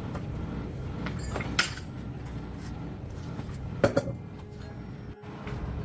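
Metal parts or tools clinking against each other, with a sharp clink about a second and a half in and two more close together near four seconds, over a steady low rumble.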